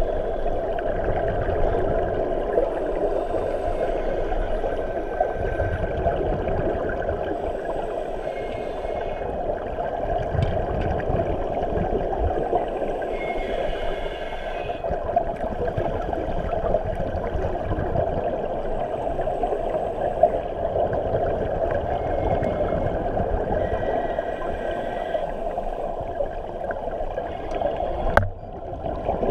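Underwater sound heard through a camera's waterproof housing: a steady, muffled rush of water, with scuba divers' exhaled bubbles gurgling up at times. A brief knock comes near the end.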